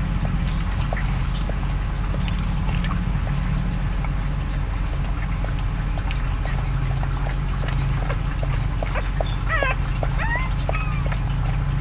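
Newborn puppies squeaking and whimpering in short cries that rise and fall in pitch, mostly in the last few seconds, over a steady low hum.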